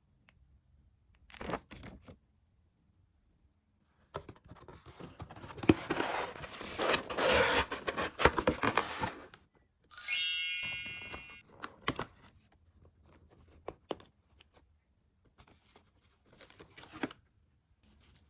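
Toy packaging being torn open and crinkled: a few short rustles, then about five seconds of tearing and crinkling. A bright ding follows, fading over about a second and a half, then a few light taps and clicks.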